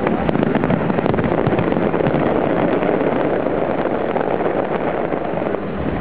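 A big fireworks display: a dense, continuous barrage of bangs and crackles from many shells bursting overhead, easing slightly near the end.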